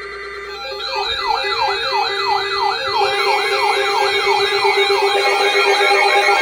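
Electronic siren yelping in rapid rising-and-falling sweeps, about three a second, over a lower warbling two-note pattern. It starts after a brief steady high tone and swells in over the first second.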